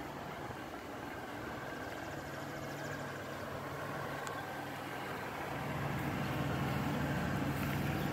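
A steady low engine hum, like a motor idling, that comes in about two seconds in and grows louder over the last few seconds.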